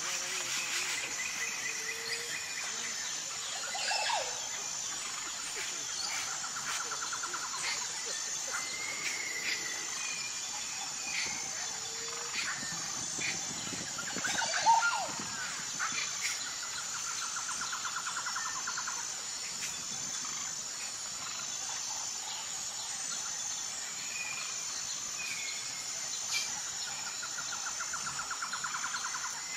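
Outdoor birdsong: scattered short chirps and calls, and a buzzy trill repeated about every ten seconds, over a steady high-pitched drone.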